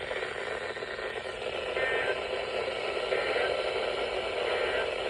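Static hiss from a radio receiver on an over-the-air alert broadcast: a steady, narrow-band noise with no clear voice in it.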